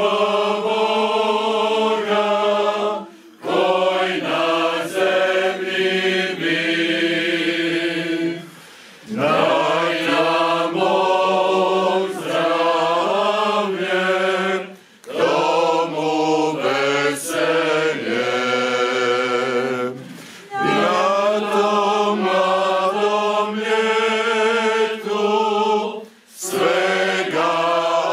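Mixed choir of men and women singing a Christmas carol unaccompanied, in phrases of several seconds broken by short pauses for breath.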